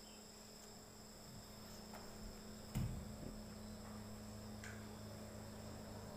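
Faint, steady, high-pitched chirring of insects, with a low hum beneath it and one dull thump just before three seconds in.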